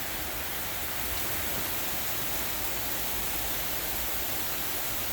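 Heavy rain pouring steadily in a strong wind, a dense even hiss.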